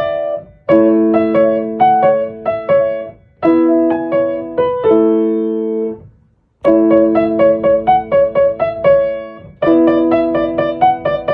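Background music: a light piano tune played in short phrases of struck notes that ring and fade, with a brief break about six seconds in.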